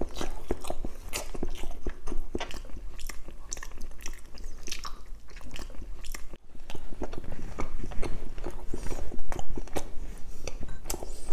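Close-miked chewing of a mouthful of roast chicken: irregular wet clicks and smacks of the mouth. Partway through, the whole roast chicken is torn apart by hand.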